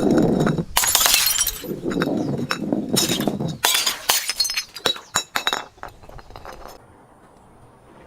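Glass bottle being smashed: several loud crashes and crunches of breaking glass in the first four seconds, then shards clinking and tinkling, dying away near the end.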